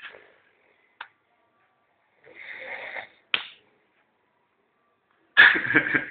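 A man snoring in his sleep: a softer snore a little over two seconds in, then a loud snore near the end, with silence between and a couple of short clicks.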